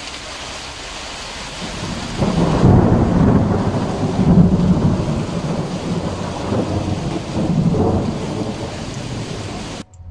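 Steady rain falling, then about two seconds in a long, rolling rumble of thunder that swells and ebbs for several seconds before cutting off suddenly near the end.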